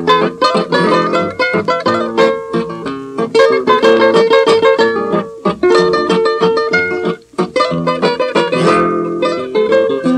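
Instrumental introduction of a Peruvian vals played on acoustic guitars, heard from a 1954 78 rpm shellac record: quick plucked runs and chords, with a short break about seven seconds in.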